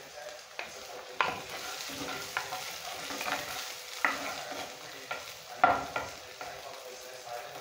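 Serving spoon scraping and knocking against the inside of a hot pot as food is dished out, with irregular sharp knocks over a low, steady sizzle from the pan.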